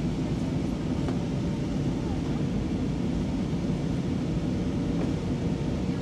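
Steady cabin noise of an Airbus A320-232 in flight, heard inside the cabin at a window seat behind the wing: an even low rumble of airflow and its IAE V2500 engines.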